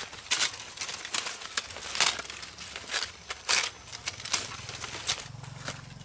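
Leaves rustling and twigs snapping in sharp, irregular crackles as fruit is pulled off a fruit tree's branches by hand.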